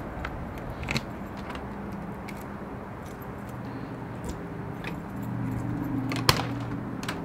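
Keys jangling and clicking in the locks of an Airstream travel trailer's aluminium entry door, with small clicks throughout and one sharp, loud click about six seconds in as a lock or latch turns.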